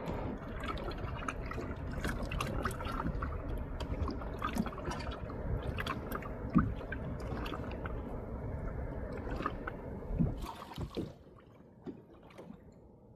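Water splashing and dripping in many small irregular splashes over a steady low rumble; the rumble and splashing stop suddenly about eleven seconds in.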